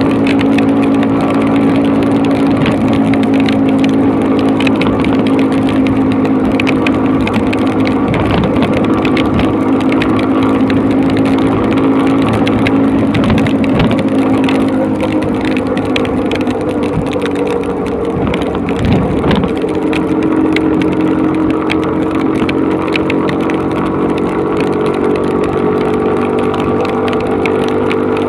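Motorcycle engine running steadily at cruising speed, its pitch sagging a little past the middle and then rising again, under a constant rush of wind and rain on the microphone.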